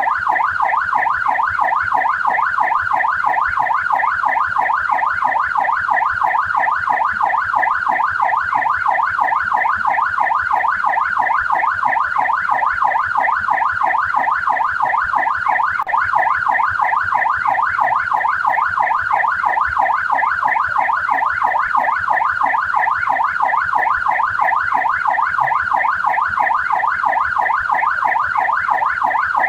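Australian police car siren on its yelp setting: a loud electronic wail sweeping rapidly up and down in pitch, repeating evenly without a break.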